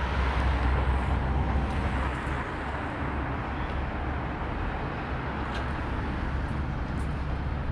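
Road traffic noise. A vehicle passing close by makes a low rumble for the first two seconds or so, which then settles into a steadier hum of distant city traffic.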